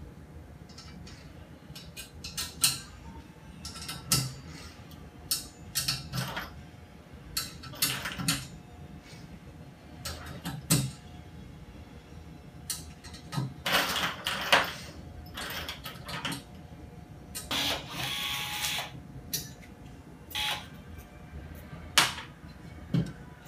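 Small metallic clicks and taps as blind rivets are fitted by hand into the holes of a perforated metal robot frame, with a couple of longer rustling stretches about midway and a sharp click near the end as the rivet gun is pressed on.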